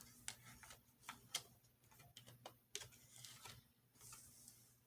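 Faint, irregular light clicks and taps with a couple of soft brushing sounds, over quiet room tone.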